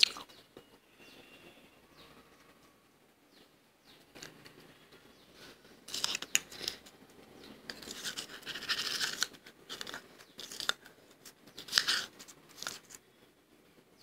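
A metal spoon scraping and scooping soft freezer frost in a ceramic bowl. It starts about halfway through as several short scrapes, with one longer scrape among them.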